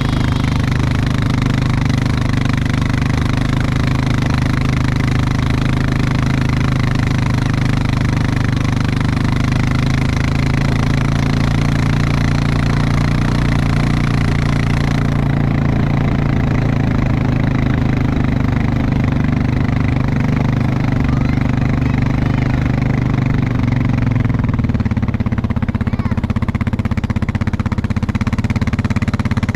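Vehicle engine running steadily, its pitch shifting slightly about three-quarters of the way through.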